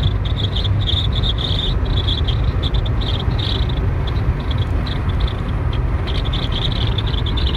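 Wind whistling through a slightly cracked front passenger window of a moving car, giving a high chirping that comes and goes in quick pulses and sounds like a bird inside the car. Steady road rumble lies under it.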